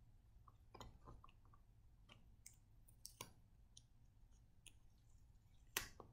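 Near silence broken by faint, scattered clicks and rustles of paper and sticky tape being handled while a paper sail is taped onto a plastic straw, with the sharpest click near the end.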